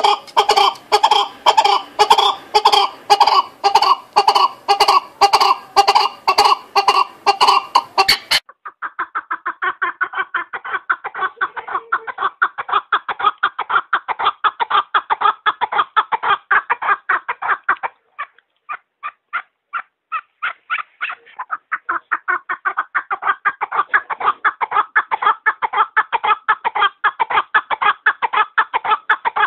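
Chukar partridges giving their rapid, rhythmic clucking 'chuk-chuk-chukar' call in a long unbroken series. After about eight seconds the calling turns duller and faster, and it thins out briefly about two-thirds of the way through before picking up again.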